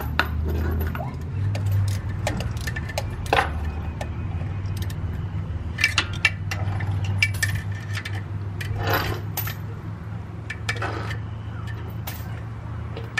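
Loose steel bolts and small metal parts clinking and clicking as they are handled, in irregular light taps, over a steady low hum.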